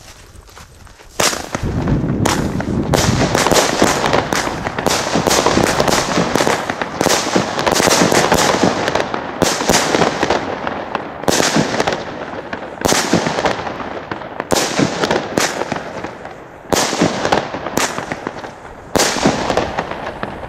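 Weco Aquila 16-shot fireworks battery firing: starting about a second in, a rapid series of sharp shots launching and breaking in the air, with crackle and hiss between them, until near the end.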